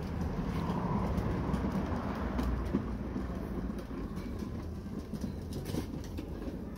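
Plastic wheels of a toddler's foot-powered ride-on toy truck rolling across a hard floor, a steady low rumble with scattered clicks.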